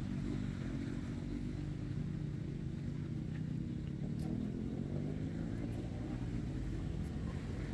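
Steady low rumble of a running motor vehicle engine, with a few faint ticks.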